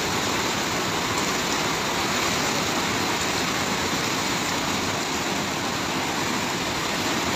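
Fast-flowing muddy floodwater rushing through a village street, a steady unbroken rush of water.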